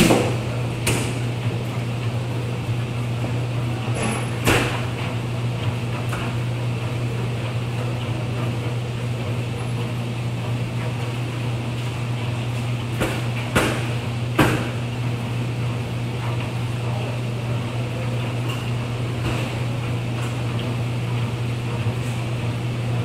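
Laundromat ambience: a steady low hum of running machines over a constant wash of noise. A handful of short knocks and clatters come through, a few seconds apart, clustered about 4 and 13–15 seconds in.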